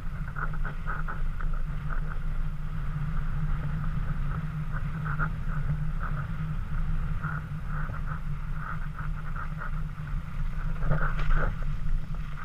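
Wind buffeting a pole-held action camera and skis sliding over packed snow, a steady low rumble with a fluttering higher scrape, louder about eleven seconds in.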